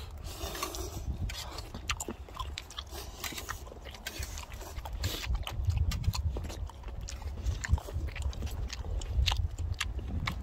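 Close-up eating sounds: chewing and biting into webfoot octopus and ramen, with many short, irregular wet clicks, over a steady low rumble.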